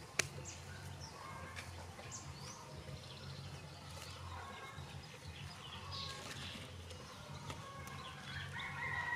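Small birds chirping now and then over a steady low background hum, with one sharp knock just after the start and a louder bird call near the end.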